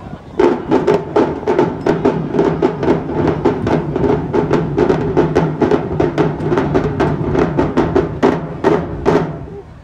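Marching drumline playing a fast cadence: a dense run of snare and bass drum strokes. It starts about half a second in and cuts off near the end.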